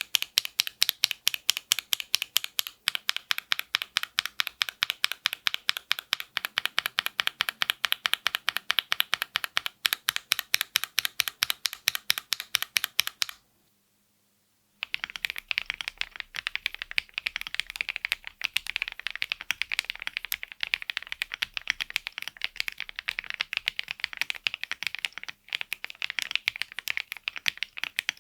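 Fast, steady typing on a mechanical keyboard, the keys clacking several times a second. About halfway through the typing stops for a second and a half, then resumes with a brighter sound.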